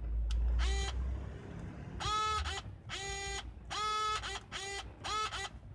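Pentax Espio 140M's power-zoom lens motor whining in a series of short runs as the lens is zoomed, about six or seven in all. Each run rises quickly in pitch, then holds a steady whine until it stops. A low handling rumble comes in the first second or so.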